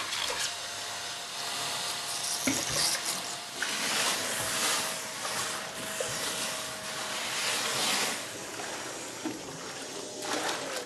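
Kärcher WD3.600 MP wet-and-dry vacuum with a 1400-watt motor sucking water out of a sink: a steady rush of water and air drawn up the hose, in surges, over a thin motor whine. Near the end the whine begins to fall as the motor winds down.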